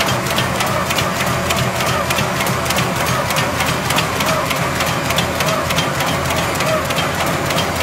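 Paper bag making machine running, a steady, rapid mechanical clatter of about four clicks a second as finished bags are fed out onto the stack.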